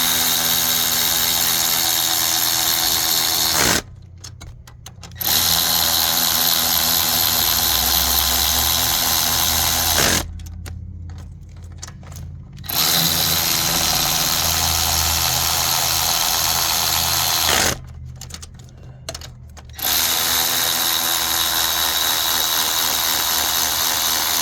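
A power tool with a 13 mm socket running a head bolt down into a Jaguar 4.2 V8 block, in four steady runs of about five seconds each with short pauses between them. The bolt does not sound right going in, and the mechanic suspects trash in the threads.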